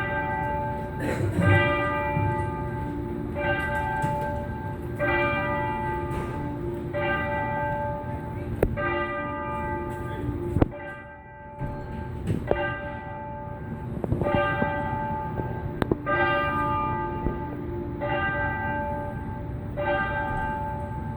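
Tower bell striking the noon hour: one bell tolled over and over at the same pitch, about every two seconds, each stroke ringing on into the next.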